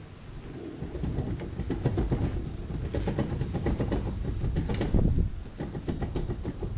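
Outboard motor's lower unit (gearcase) being wiggled and pulled loose by hand: an irregular run of metal clunks and rattles, loudest about five seconds in.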